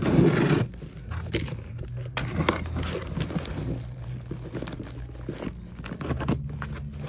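Cardboard shipping box being opened by hand: a loud tearing rip in the first half second, then the cardboard flaps scraping and rustling with small knocks.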